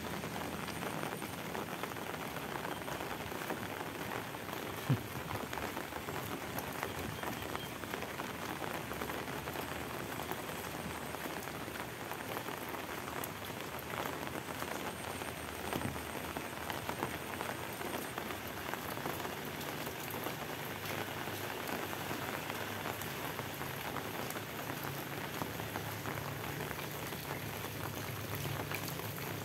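Steady rain falling, an even hiss of drops with no letup, broken by one sharp tap about five seconds in.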